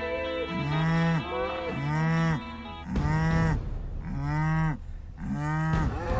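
Cattle mooing over and over: short moos that rise and fall in pitch, about one a second.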